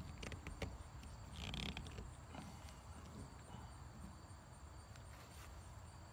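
A few faint clicks and one short scrape, about a second and a half in, from a metal hand tool prying at the bent plastic rim of a polyethylene water tank.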